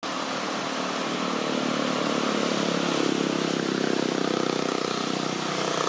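An engine running steadily, with a fast, even pulsing.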